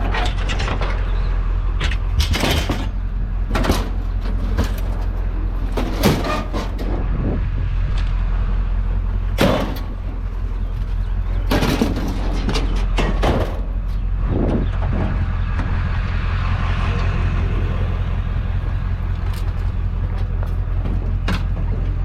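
Vehicle engine idling steadily, with a dozen or so scattered sharp knocks and clanks as objects are shifted around.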